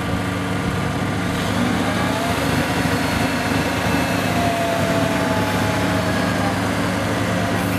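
Heavy house-moving truck's diesel engine running steadily at a low, even pitch, with a faint higher whine that wavers in pitch.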